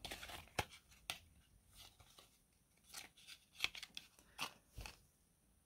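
Faint, irregular small clicks and rustles of costume earrings being picked up, handled and set down.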